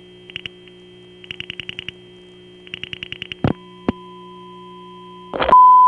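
Telephone line recording: rotary dial pulses click in quick runs of several clicks each, then the line clunks and a faint steady tone comes through. After another clunk, near the end a loud steady tone comes on the line, the same tone as on the 9900 test numbers, put on the 780 party line to jam it.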